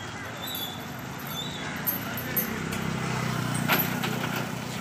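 Asian elephant breaking wind as its tail is pulled: a low, pulsing rumble that starts about halfway through and lasts about two seconds.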